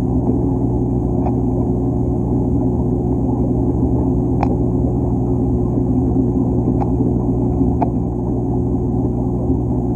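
Steady low mechanical hum with four sharp clicks about a second or more apart: a figure 8 puffer crunching the shells of ramshorn snails.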